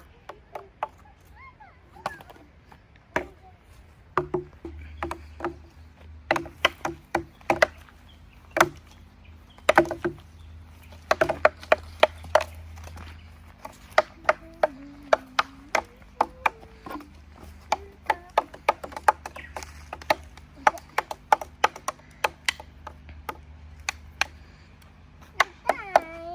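A stick beating on pieces of dry driftwood: many quick, irregular knocks, some in fast runs, several of them ringing with a short woody tone.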